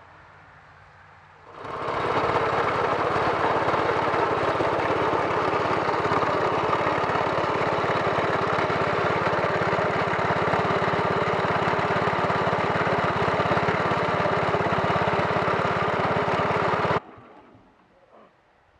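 Bolens 1050 garden tractor engine running steadily, starting about a second and a half in and cutting off abruptly near the end.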